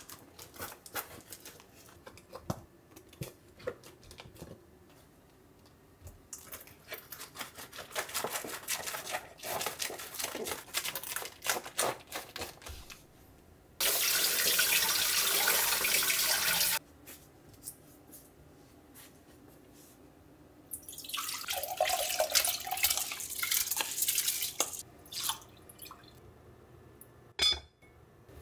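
Kitchen handling sounds, then a pull-out faucet running water onto produce in a bamboo basket for about three seconds, the loudest part. Later a further stretch of rushing noise, and near the end a single sharp clack as the lid is set on a black stone pot.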